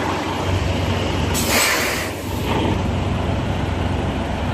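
Semi-truck diesel engine idling with a steady low hum, broken about a second and a half in by a loud hiss of compressed air lasting about a second, typical of the air parking brakes being set.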